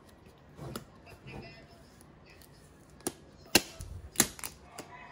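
A quick run of about five sharp clicks and knocks about three to five seconds in, from a dash cam's retail box and packaging being handled and opened.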